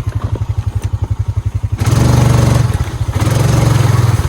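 Honda Rubicon 520 ATV's single-cylinder engine chugging at low revs for about two seconds, then revving up, easing off briefly about three seconds in, and revving again.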